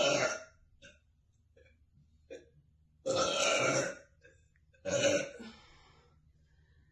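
A young woman burping. One burp ends just after the start, a longer burp of about a second follows about three seconds in, and a shorter one comes near five seconds in, with a few faint short sounds in between.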